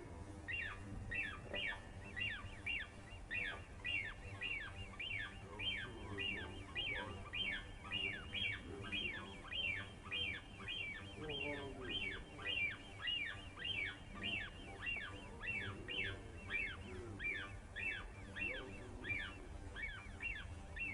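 Birds calling continuously: short, high calls that sweep downward, about three a second, overlapping.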